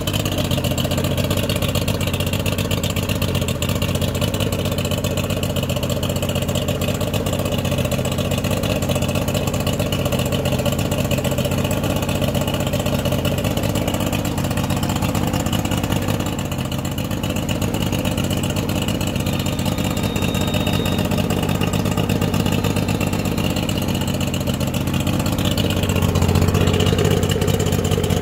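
2001 Mercury 50 hp two-stroke outboard motor running steadily on a stand out of the water, a little louder near the end.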